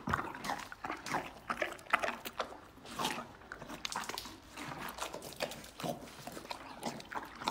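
A horse biting into and chewing a wedge of watermelon, with irregular crunching bites.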